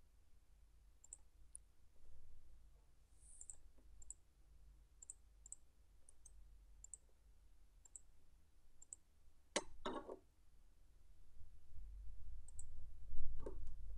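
Computer mouse clicking now and then, about a dozen short, sharp clicks. A louder knock comes about ten seconds in and another near the end.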